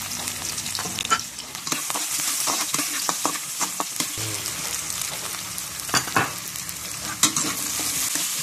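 Chopped onion and garlic sizzling in hot oil in a pan as they are sautéed, a steady hiss with frequent sharp clicks and scrapes of the spatula against the pan as they are stirred.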